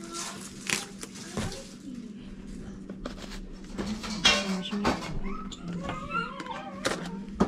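Crinkly handling sounds, as napa cabbage leaves are pulled apart and a plastic clamshell mushroom pack is picked up and tipped over a bowl, loudest about four seconds in. A high, wavering, voice-like call is heard about six seconds in, over a low steady hum.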